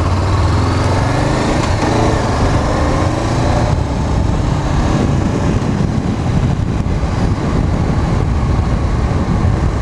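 2014 Honda CBR500 motorcycle engine pulling away from a stop, its note climbing in pitch through the first few seconds. It then settles into steady running mixed with a rush of wind noise.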